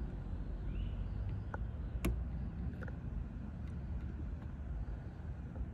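Faint metallic clicks of a Lishi CY24 2-in-1 pick working the wafers of a car door lock, with one sharper click about two seconds in, over a steady low background rumble.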